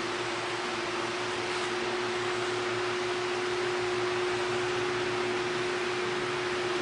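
Steady machine hum: a constant single tone over an even hiss, unchanging throughout.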